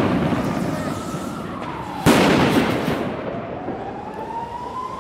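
Fireworks going off: one sharp, loud bang about two seconds in that fades out over the next second or so. A thin whistling tone glides down before the bang and slowly rises after it.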